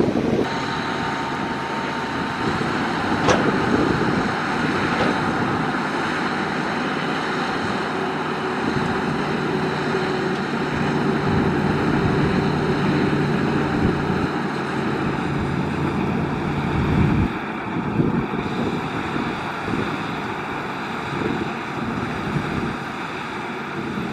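Caterpillar 140H motor grader's diesel engine running steadily as the grader works a gravel road. A low steady hum in its note drops out about 17 seconds in.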